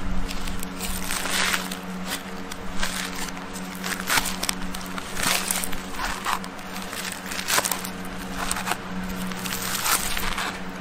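Knife cutting and scraping into the charred husk and shell of a roasted coconut, in irregular crunching, tearing strokes about every half second to a second.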